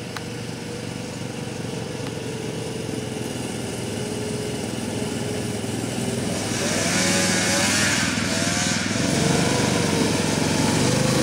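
Arctic Cat 120 youth snowmobile's small engine running steadily as the sled drives up, getting louder as it nears. The engine note wavers slightly, and more hiss comes in about halfway through.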